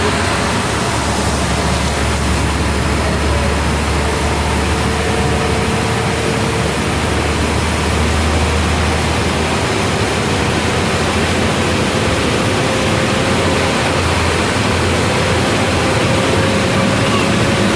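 Steady rushing noise over a constant low engine drone from a river motor ship, with a faint tone that rises slightly near the end.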